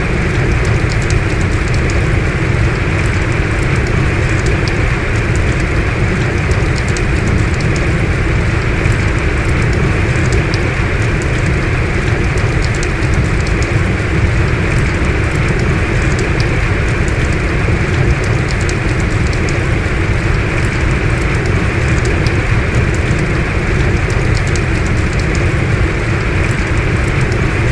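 Heavy rain falling steadily, a dense even hiss with many fine drop ticks on top and a strong low rumble underneath.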